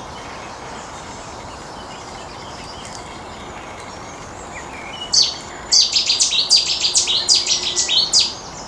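A songbird singing a fast, loud run of short high chirps for about three seconds, starting about five seconds in, over a steady background hiss of outdoor ambience.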